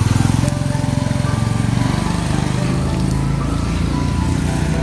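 Small motor scooter engine running as it rides past close by: a steady low drone.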